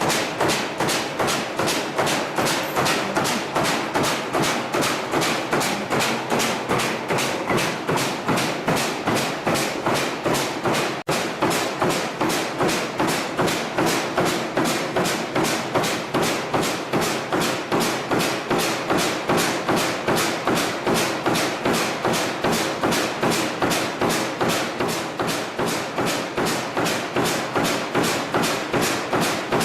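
Expanded metal mesh machine running steadily, its reciprocating blade stroking about three times a second as it slits and stretches the sheet metal, each stroke a sharp metallic thud.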